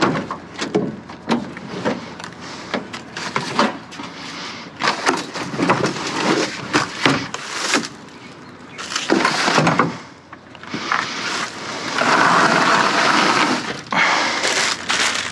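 Debris being handled and shifted: a run of knocks, clatters and cracks, with a longer stretch of scraping or rustling about twelve seconds in.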